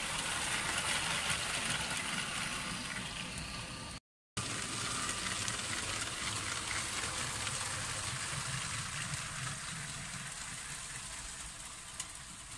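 LEGO train running on plastic LEGO track: a steady rushing rattle of the wheels and motor. It breaks off for a moment of silence about four seconds in.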